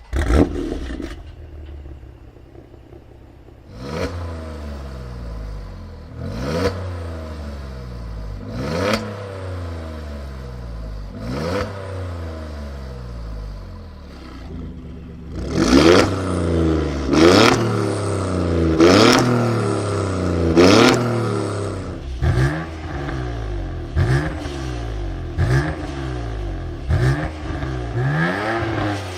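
Twin-turbo six-cylinder sports car engine fired up with a loud flare, then settling to idle. It is then free-revved repeatedly, each rev climbing and falling back. The blips come about every two and a half seconds at first, then louder and quicker, about every second and a half, in the second half.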